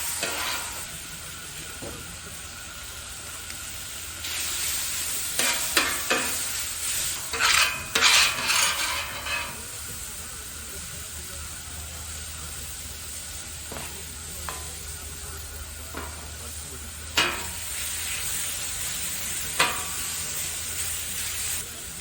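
Food sizzling steadily in a frying pan, with a spatula stirring and scraping it in a busy spell a few seconds in and two sharp knocks against the pan later on.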